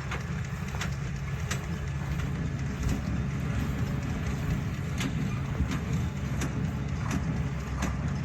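Tractor engine running steadily while pulling a small square baler, with sharp clacks from the baler about every second, unevenly spaced.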